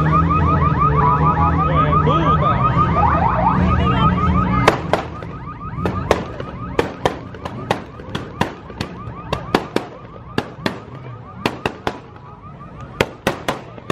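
A loud car engine runs under an alarm warbling in rapid, even chirps. About four and a half seconds in the engine cuts off abruptly, and a string of sharp, irregular cracks follows, one or two a second, with the alarm still faintly sounding behind them.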